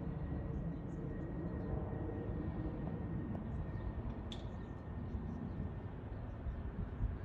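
Low rumble of a distant diesel city bus approaching, mixed with general traffic noise. A short high chirp sounds about four seconds in.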